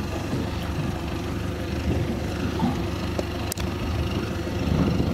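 Outboard engine of a Stabicraft 2050 aluminium boat running steadily, a low rumble with water and wind noise over it. A single sharp click comes about three and a half seconds in.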